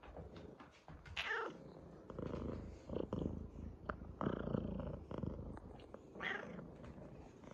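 Domestic cat purring close to the microphone, the purr swelling and easing with each breath. Twice, about a second in and near the end, a short call that falls in pitch.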